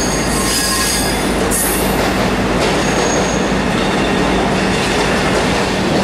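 V/Line locomotive-hauled passenger carriages rolling past on the adjacent track: a steady rumble of steel wheels on rail with a low steady hum, and thin high wheel squeals near the start and again about three seconds in.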